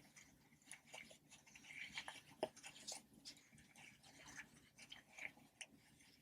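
Ocean-animal popper toys being pressed and handled: faint, irregular small pops and clicks, with a sharper pop about two and a half seconds in.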